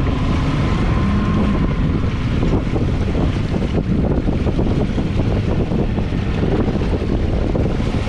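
Wind buffeting the microphone over an Evinrude 175 outboard running in reverse, with sea water churning around the stern as the boat backs into the swell.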